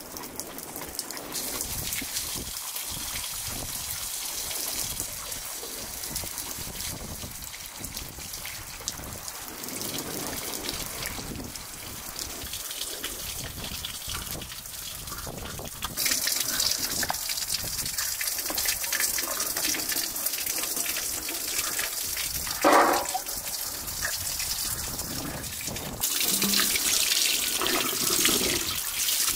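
Water running steadily like a tap in a sink, an even splashing hiss that steps louder about halfway through and again near the end, with a short clunk about three-quarters of the way in.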